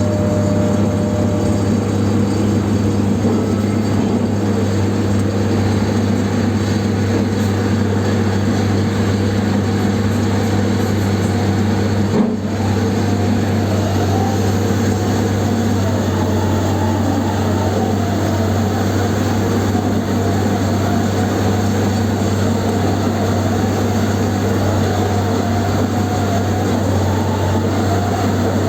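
A large machine running steadily with a deep, constant hum, with one brief break about twelve seconds in.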